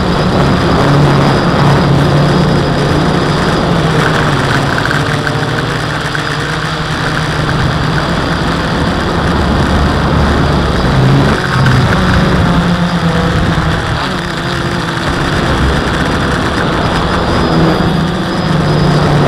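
The four brushless motors and propellers of a WLToys V303 Seeker quadcopter, buzzing steadily as heard from the camera on board, the hum shifting up and down in pitch as the throttle changes in flight.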